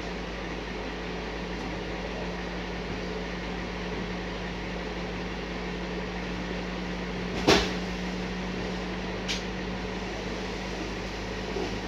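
A self-loading platform truck's engine and hydraulics running with a steady hum. One sharp knock comes a little past halfway, and a lighter click follows about two seconds later.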